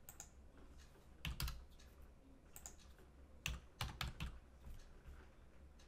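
Faint computer keyboard typing: a handful of separate keystrokes, with a quicker run of several about three and a half to four seconds in, as digits are entered into a form.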